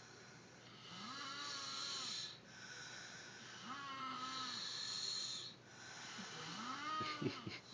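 Snoring: three drawn-out snores, each rising and falling in pitch on the in-breath, the third louder and breaking up into sharp rattles near the end.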